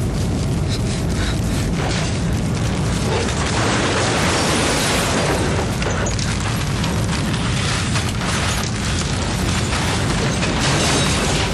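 A loud, steady wall of deep rumbling noise that cuts off suddenly at the end.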